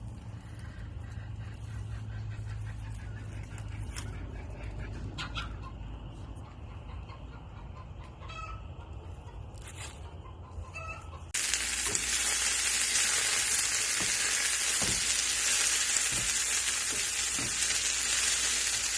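Chickens clucking faintly over a low steady hum. About eleven seconds in, a sudden cut to a pan of eggs with chicken, tomato and onions sizzling loudly as it fries.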